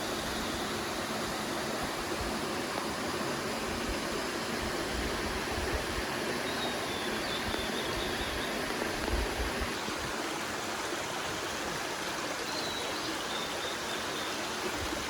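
Mountain valley stream rushing steadily over rocks.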